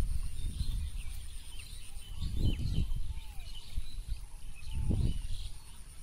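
Wind gusting on the microphone, with small birds chirping and a steady high-pitched insect drone in the background.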